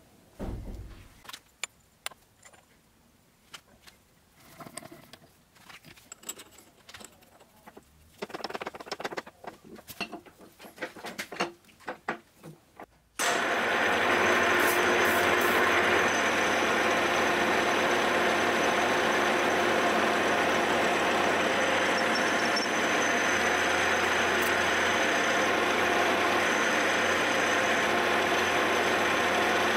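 Scattered faint clicks and handling knocks, then from about 13 seconds in a milling machine runs loud and steady as its end mill cuts into a metal soft-jaw blank held in a vice, spindle whine and cutting noise together.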